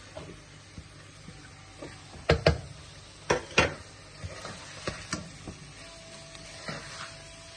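A metal cooking spoon knocking against a pot while stirring, with sharp knocks coming mostly in pairs, over a faint sizzle of food frying.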